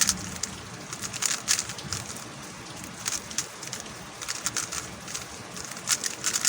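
A MoYu Huameng YS3M MagLev 3x3 speedcube being turned fast, making quick irregular clusters of sharp plastic clicks as the layers snap round.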